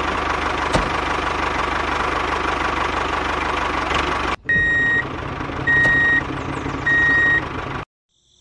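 A model mini tractor's motor runs with a steady whirring hum. About four and a half seconds in, the sound breaks and three evenly spaced reversing beeps sound over the motor as it backs up, then the sound cuts off just before the end.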